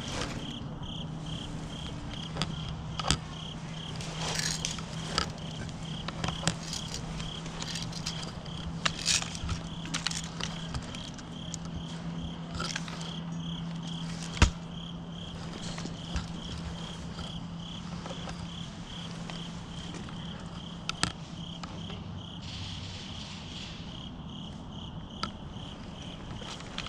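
A cricket chirping in short, evenly spaced pulses, several a second, without a break. Scattered sharp crackles and snaps sound over it, the loudest about halfway through, with a steady low hum underneath.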